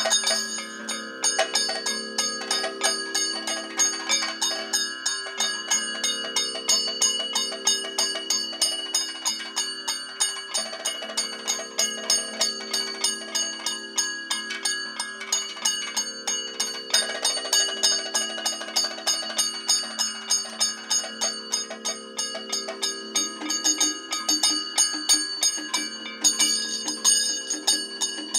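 Kathakali accompaniment: bell-metal gong and cymbals (chengila and elathalam) struck in a quick, even beat, their ringing tones over a steady drone.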